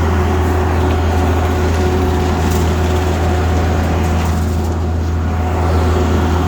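Heavy diesel engine of a concrete boom pump truck running steadily under load during a concrete pour, a loud, even low drone.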